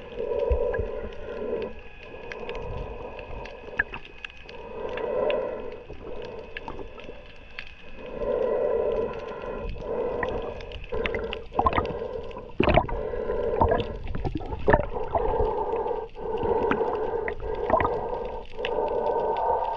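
Muffled underwater sound picked up by a camera held below the surface: a hum that swells and fades every few seconds, then runs almost steadily through the second half, with scattered sharp knocks and clicks, the loudest a little past halfway.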